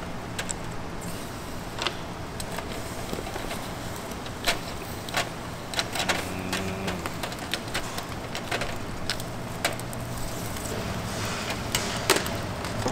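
Kitchen clatter of hard objects being handled: irregular sharp clicks and knocks, one of the loudest near the end, over a steady low hum.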